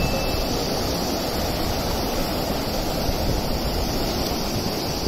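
Fast, swollen floodwater rushing over river rapids in a steady, unbroken wash.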